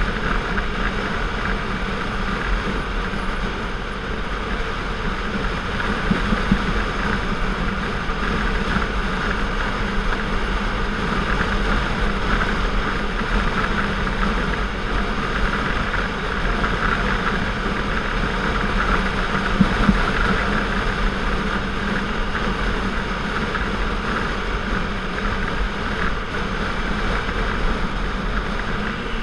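Motorcycle being ridden at steady road speed: the engine's even hum mixed with constant wind and road noise, with no gear changes or revving.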